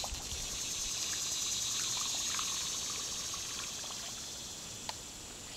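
Steady high-pitched buzz of an insect chorus, swelling a little and then slowly fading.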